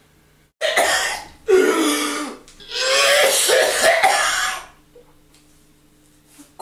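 A person coughing hard through a surgical mask: three loud coughs, the last one a long coughing fit.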